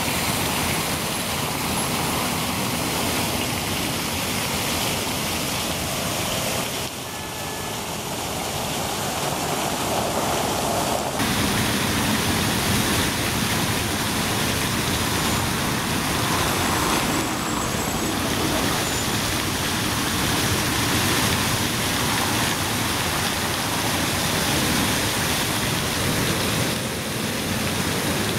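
Road traffic, cars passing on a wide square, for the first several seconds. From about eleven seconds in there is a steady rush and splash of a large tiered fountain's water jets falling into its basin.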